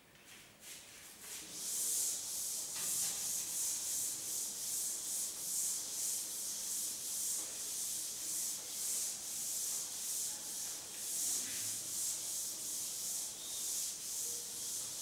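Wooden-backed duster being rubbed back and forth across a chalkboard to wipe off chalk: a quick, even series of scratchy swishes, about two strokes a second, starting about two seconds in.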